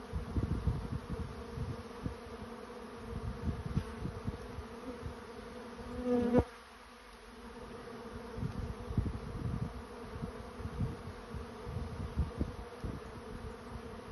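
A swarm of honey bees flying in a dense, steady buzzing hum, with irregular low bumps underneath. About six seconds in, one bee's buzz swells loud close by and then cuts off suddenly.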